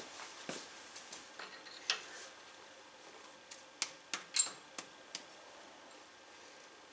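Scattered light metallic clicks and clinks of a combination wrench fitting onto and working a fuel line nut on a diesel injection pump. The line is being cracked to bleed air from the fuel system. The sharpest clink rings briefly about four and a half seconds in.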